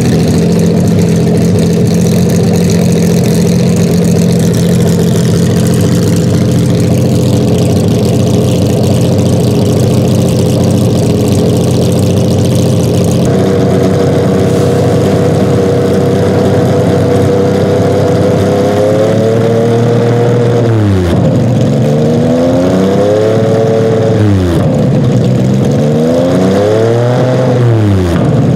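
Porsche 996 GT3 race cars' 3.6-litre flat-six engines idling steadily, with the tone changing to a second car about halfway through. That car, a 2004 996 GT3 RSR, then has its throttle blipped three times near the end, the revs climbing and dropping back each time.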